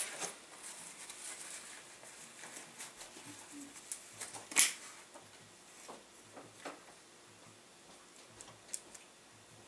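Rustling of a nylon backpack and small gear being handled in its pockets, with scattered light clicks and one sharp click about four and a half seconds in.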